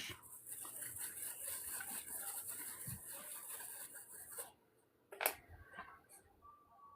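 Small brush scrubbing a corroded circuit board with isopropyl alcohol: a soft, scratchy bristle sound for about four seconds, then a single sharp click near the middle and a few faint light taps.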